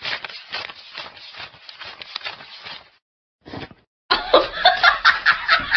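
Quick, rapid flicks and rustles of paper banknotes being counted by hand, about five a second. After a short gap, a louder, busier run of rapid sounds starts about four seconds in.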